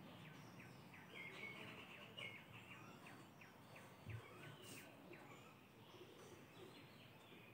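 Near silence, with faint bird chirps in the background, a quick run of short repeated notes in the first half.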